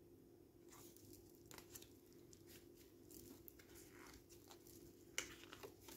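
Faint rustles and soft ticks of tarot cards being handled and turned, with a sharper tap about five seconds in, over a faint steady hum.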